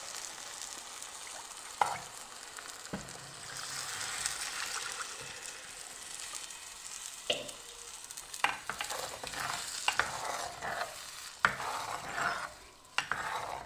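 A steel ladle stirring a simmering curry in an earthenware pot, knocking against the pot several times, over a steady frying sizzle as tamarind water is added to the sautéed vegetables.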